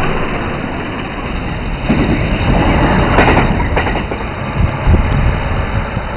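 A train passing close by: a loud, continuous rumble of wheels and moving air, swelling around two and five seconds in.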